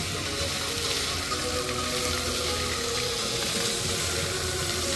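Water jets of a musical dancing fountain splashing and spraying steadily into the basin, with music playing underneath.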